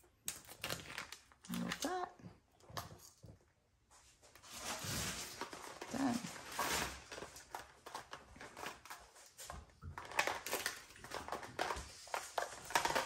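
Clear plastic bead containers and their storage case being handled, with irregular small clicks and rustles, and a label sheet being worked.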